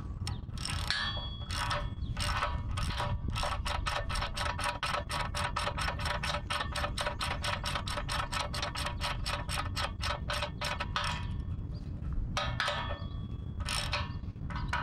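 Ratchet wrench clicking as a bolt is run into the stabilizer-spike holder of a tractor bale spike: a few uneven clicks, then several seconds of rapid, even clicking, then a few uneven strokes again near the end.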